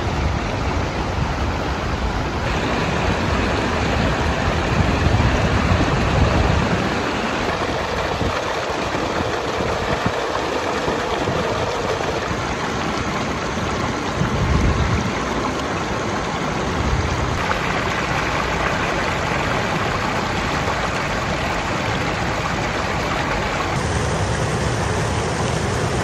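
Steady rush of river water flowing below a dam, with wind buffeting the microphone at times. The sound changes abruptly a few times.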